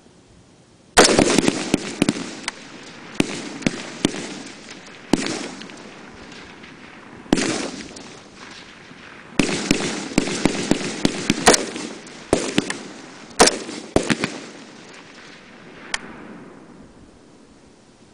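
Semi-automatic M16-pattern rifle fire on a firing range: many single shots from several rifles along the line, some overlapping, each followed by a rolling echo. The shooting starts about a second in, comes thickest in the middle and thins out to a last shot near the end.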